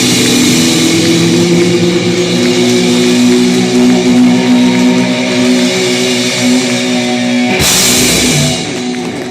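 Live rock band playing loud through the PA at a sound check: electric guitar with drum kit, guitar notes held and ringing. A crash cuts in about seven and a half seconds in, and then the music falls away.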